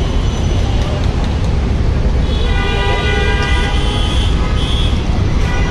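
Busy street traffic with a steady low rumble; a vehicle horn sounds for about three seconds, starting about two seconds in.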